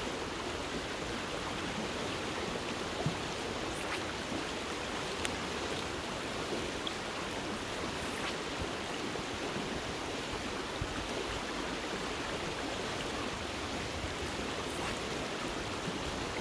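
River water running high, a steady rushing flow, with a few faint brief ticks scattered through it.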